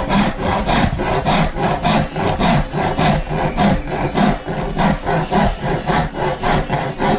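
Hand rasp scraping across a wooden conga shell in quick, even back-and-forth strokes, about three a second, shaving the wood to round the shell.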